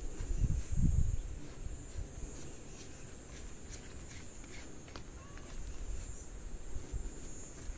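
Steady high-pitched chirring of insects, with low rumbles in the first second and a few faint clicks.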